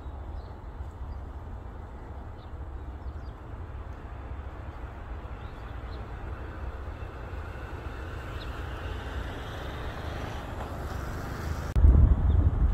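Outdoor field ambience: a steady low wind rumble on the microphone, with the noise of a passing vehicle building up over the second half. About 12 seconds in it jumps abruptly to much louder low wind buffeting.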